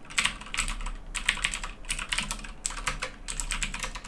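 Typing on a SteelSeries Apex 7 mechanical keyboard with blue clicky switches: a rapid run of sharp, high clicks from the key presses.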